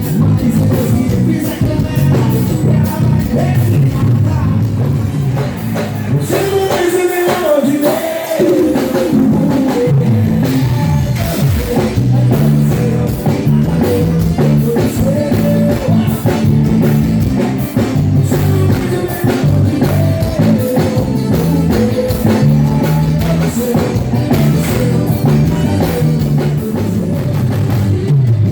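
Loud live band music with a steady drum beat, bass and a singer's voice over it.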